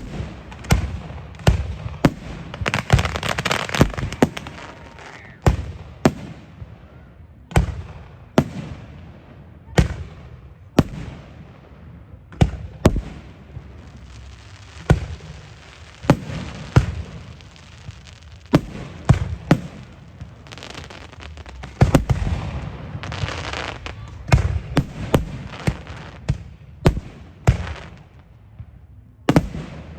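Fireworks display: a continuing string of sharp bangs from launches and shell bursts, about one or two a second, with stretches of hiss and crackle between them.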